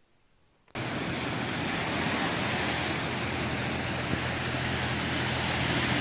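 Steady rushing of ocean surf and wind, starting suddenly less than a second in after near silence, with a low steady hum underneath.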